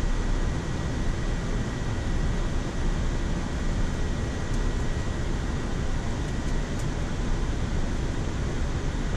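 Steady rushing flight-deck noise of a Boeing 787-9 in descent, from air streaming past the cockpit and the air-conditioning, with a faint steady high whine.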